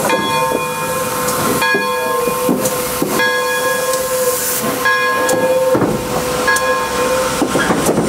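Pere Marquette 1225, a 2-8-4 Berkshire steam locomotive, moving slowly: steam hissing under a steady whine, with irregular metallic clanks and knocks.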